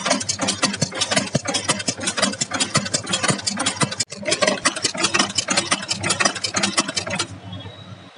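Automatic chain-making machine forming small wire chain links, its mechanism clattering in a fast, even rhythm of many metallic strokes a second over a steady hum. The clatter stops near the end, leaving only the low hum.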